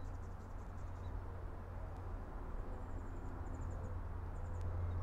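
Steady low droning hum with a few faint high chirps in the middle and a faint click near the end.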